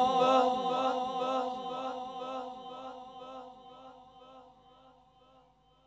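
The last drawn-out note of a man's Quran recitation repeats over and over through the sound system's echo, fading away. It dies out about four and a half seconds in.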